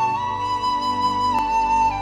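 Background music: a flute plays a slow melody of long held notes over a low, steady drone.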